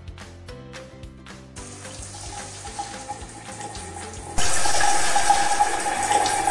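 Background music with a steady beat, then a shower comes on suddenly about four seconds in, spraying water over the suction hook and the hanging jugs in a loud, steady hiss.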